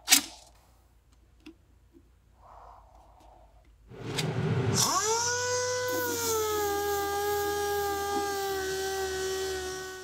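Electric palm sander with a round pad starting up about four seconds in and running steadily as it sands a filler-coated sheet-metal panel, its pitch dipping slightly as it settles on the work, with a high hiss of the abrasive. A sharp click comes at the very start.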